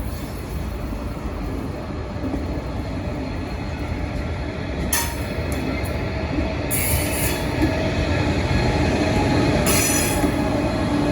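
KTX-Sancheon high-speed train rolling past, a continuous rumble that grows louder, with short high-pitched bursts from the wheels about five, seven and ten seconds in.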